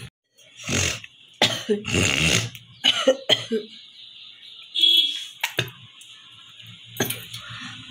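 A woman coughing in a series of forced coughs, the longest about two seconds in, with one more near the end.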